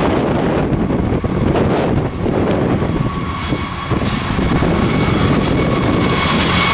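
Diesel freight locomotives passing close by, their engines running and wheels rolling on the rails, with wind buffeting the microphone at first. As the lead locomotive comes alongside about four seconds in, the sound brightens and a faint steady high whine joins it.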